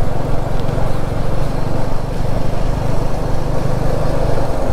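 Suzuki Gixxer SF250's single-cylinder engine running at a steady pace under way, with a steady rushing noise over it.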